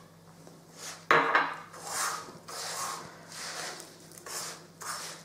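A hand working a crumbly mixture of roasted semolina, powdered sugar and milk in a nonstick frying pan: repeated short scratchy rubbing strokes, one every half-second or so, as the mix is pressed together. A sharp knock about a second in is the loudest sound.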